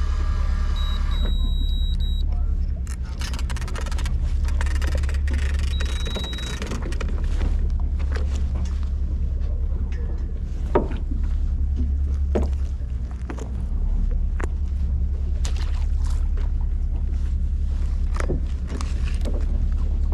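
Fishing boat's engine running with a steady low drone, with scattered clicks and knocks over it.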